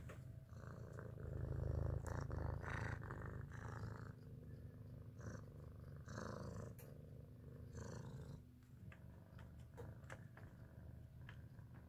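Domestic cat purring: a continuous low rumble that swells and eases in a slow rhythm with its breaths, strongest about two seconds in.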